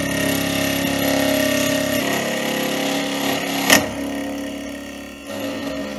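Milling machine spindle running as a 3 mm endmill roughs into a metal block. It is a steady machining sound with constant tones. A single sharp tick comes a little past halfway, and the cut eases off near the end.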